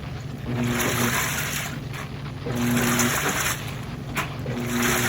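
Midea 13 kg washing machine working through its wash: water sloshing and rushing in pulses about every two seconds, each stroke carrying a low motor hum.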